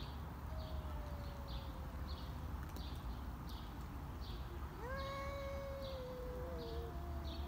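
Two cats yowling at each other in a tense standoff: one long low yowl sliding down in pitch, then about five seconds in a louder drawn-out yowl that drops lower, with a second, higher yowl overlapping it near the end.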